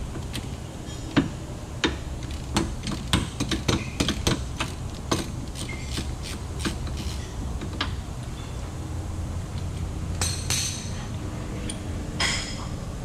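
Metal hand tools clinking and knocking on the drive-shaft bolts of a Suzuki Every 4x4 as a wrench works them loose: a run of irregular sharp clinks over the first several seconds, then two short scrapes near the end, over a low steady hum.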